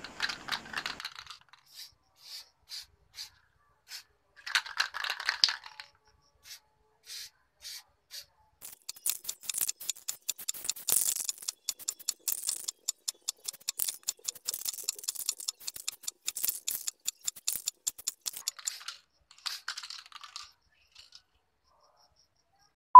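Aerosol spray paint can being handled: its mixing ball rattles in sharp clicks, sparse at first and then a fast run through the middle. Two short hissy bursts come around the fifth and twentieth seconds.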